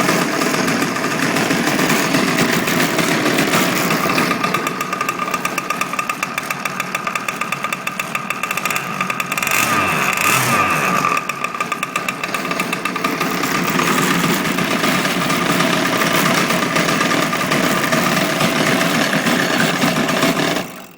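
A 35cc gas engine running steadily. It eases down a little from about four seconds in and picks back up past the middle. The engine has just been brought back to life after sitting for two years with its carburettor gummed with oil, now cleaned. The sound cuts off abruptly just before the end.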